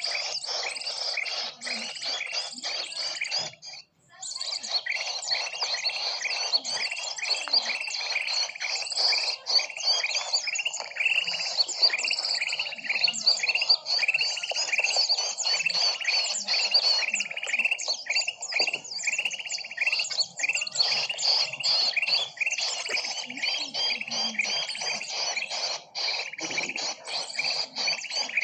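Bird-lure recording of many small birds chirping rapidly and continuously in a dense, overlapping chorus. It breaks off briefly about four seconds in, then resumes.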